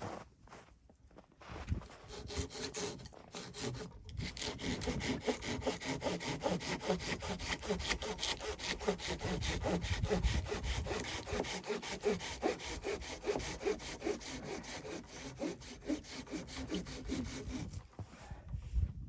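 Hand saw cutting through wood in quick, even back-and-forth strokes, starting about two seconds in and stopping near the end.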